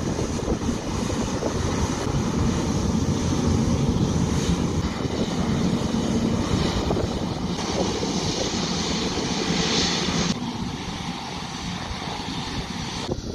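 Airbus A350's Rolls-Royce Trent XWB turbofans running at taxi power: a steady jet rumble and hiss as the airliner taxis. The level drops a step about ten seconds in.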